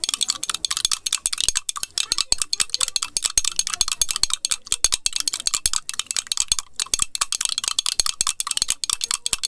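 A metal spoon beaten fast against the inside of a glass mug, a quick, unbroken run of clinks and scrapes, as instant coffee, sugar and a splash of milk are whipped into a frothy paste.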